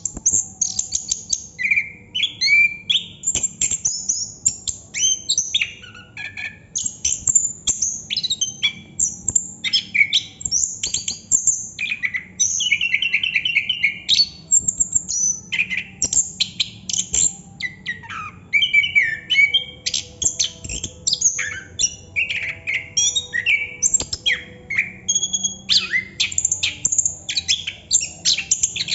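Orange-headed thrush singing continuously: a rapid, varied stream of whistled phrases, slurred notes and quick trills with hardly a pause.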